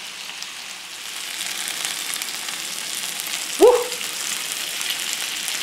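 Chicken satay skewers sizzling steadily as they sear on a hot enameled cast-iron grill pan, the hiss growing a little louder after about a second. A short sliding tone cuts in once about three and a half seconds in.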